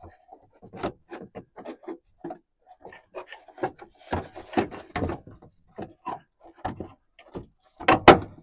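Plastic tail light housing being handled and fitted back into its opening on a pickup: a string of short knocks, taps and rubbing, with the loudest pair of knocks near the end.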